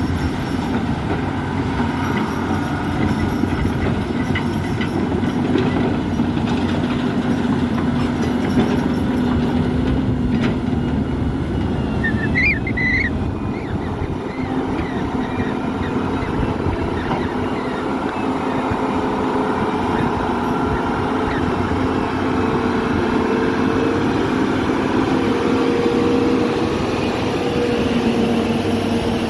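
Caterpillar 320D hydraulic excavator's diesel engine and hydraulics running steadily under work, with a steady drone and a faint whine that shifts a little in pitch. A brief high squeak comes about twelve seconds in.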